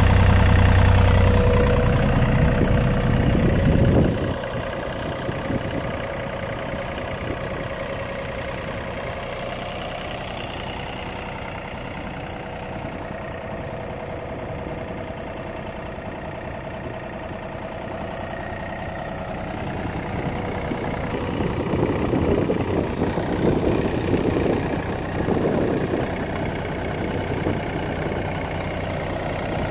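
The Yanmar diesel engine of a John Deere 35D mini excavator idling steadily. It is loudest in the first few seconds, drops suddenly at about four seconds, and grows louder again in the last third, with uneven swells.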